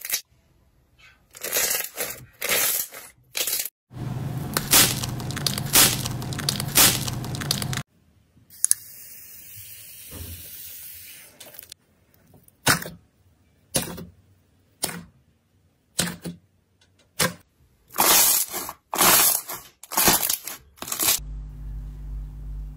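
Slime being pressed, squeezed and stretched by hand: squishy crackling and popping, in separate short bursts with gaps and a dense run from about four to eight seconds in. Near the end a low steady hum comes in.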